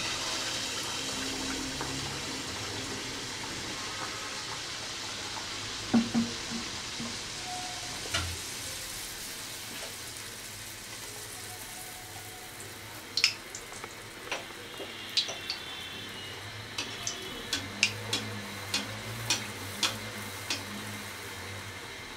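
Rice-flour and date-palm-jaggery batter deep-frying in hot oil: a steady sizzle, loudest as the batter goes into the oil and easing gradually. Sharp clicks come now and then, mostly in the second half.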